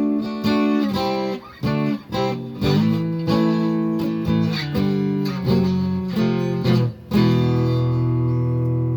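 Squier Telecaster played on its piezo pickup through a Roland Cube 30 RX amp's JC-120 clean channel. It plays a string of chords, each struck and then cut short, and a last chord is left ringing for about two seconds near the end. The piezo gives it a tone much like an acoustic guitar.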